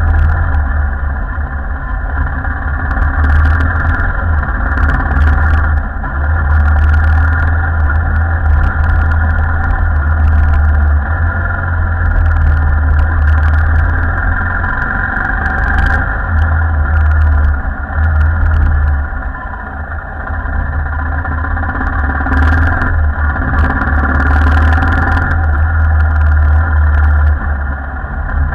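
Royal Enfield Himalayan's 411 cc single-cylinder engine running as the motorcycle rides a rough dirt track, with occasional sharp knocks. The engine eases off briefly about two-thirds of the way through.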